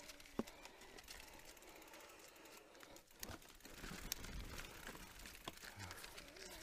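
Specialized Turbo Levo electric mountain bike riding over a rough dirt trail: faint rattling and ratcheting from the bike, with sharp clicks and knocks about half a second in, around four seconds and around five and a half seconds, over a wavering hum that dips in the middle.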